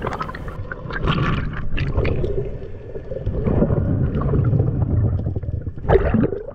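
Muffled underwater water noise picked up by a submerged camera: an irregular low rumbling and gurgling of moving water, with a brief louder burst near the end.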